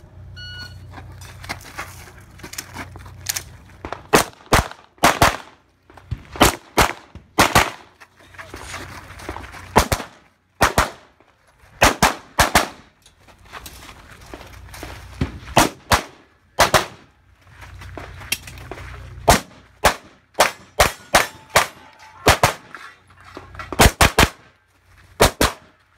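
A shot timer beeps once, then a compensated Open-division race pistol fires strings of rapid shots, mostly in quick pairs, with short pauses between the strings.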